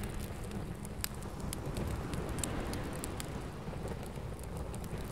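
Wood campfire crackling, with irregular sharp pops over a soft steady hiss.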